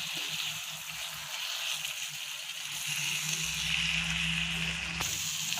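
Chicken and masala sizzling in a cast iron skillet while being sautéed, a steady hiss with a low hum underneath. A sharp click comes about five seconds in.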